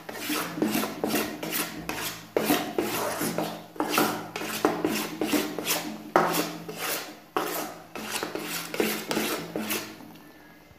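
Steel spoon scraping round a kadhai, stirring melted jaggery as it roasts: repeated rasping strokes, about two or three a second, fading out near the end.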